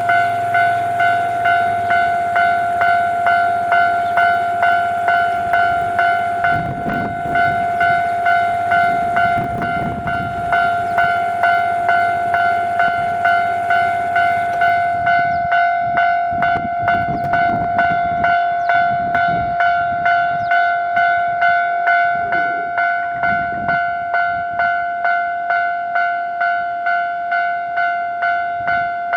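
Japanese railway level-crossing warning bell ringing steadily, one pulsing tone repeated about one and a half to two times a second. Low rumbling comes and goes underneath, about 7 and 10 seconds in and again for several seconds in the second half.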